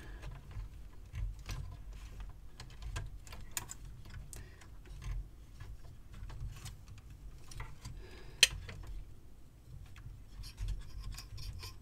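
Light scratching, rubbing and small scattered clicks of fingers and a rubber drive belt against the metal capstan mechanism of a TEAC A-103 cassette deck as the belt is worked into place, with one sharper click about eight seconds in.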